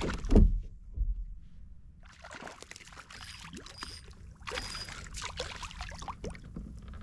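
A ladyfish being landed and handled aboard a kayak: a loud thump against the hull about half a second in and a smaller knock a moment later, then a few seconds of splashing water, rustling and small knocks as the fish is held.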